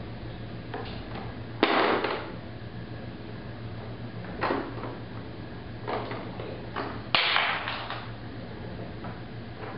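Hard plastic toy knocked and shoved about on a hardwood floor: a handful of short clattering knocks and scrapes, the loudest about a second and a half in and about seven seconds in, over a low steady hum.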